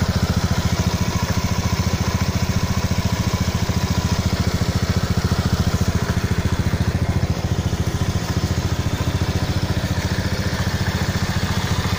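Honda Vario 110 FI scooter's single-cylinder fuel-injected four-stroke engine idling steadily, with an even low pulse, heard close to the muffler.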